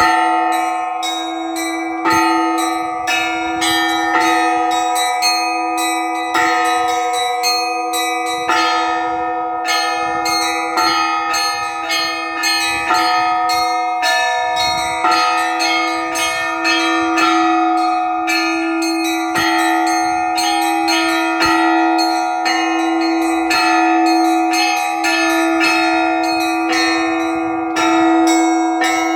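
Russian Orthodox church bells rung in a trezvon, the festive peal of all the bells together, rung here to call to the all-night vigil. Quick, overlapping strikes of smaller bells ring out over the sustained, pulsing tone of a lower bell.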